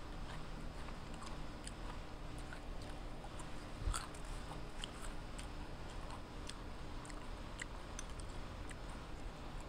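Chewing crunchy raw baby carrots close to a clip-on microphone: many small scattered crunches, with a single stronger knock about four seconds in.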